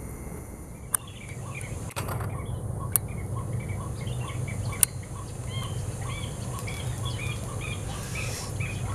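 A bird chirping in a quick, steady series of short calls, about two a second, with three sharp clicks along the way.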